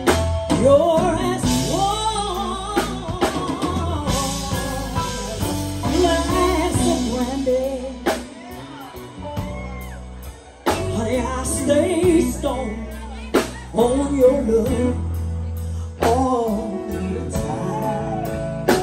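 Live band music: a lead singer's wavering, drawn-out vocal runs over drums, bass and guitar in a slow ballad, easing off briefly in the middle before the voice comes back.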